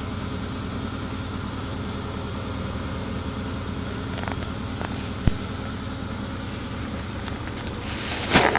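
Steady mechanical hum of the timed shaking machine running under a plastic tub of sand. There is a single sharp click about five seconds in, and a few rustling bursts near the end.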